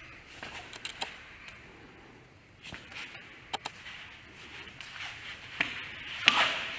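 Sporadic light slaps and brushes of hands and forearms meeting as two people strike and block in a Wing Tsun Lat Sao drill, with feet shuffling on foam mats; the sharpest slap comes near the end.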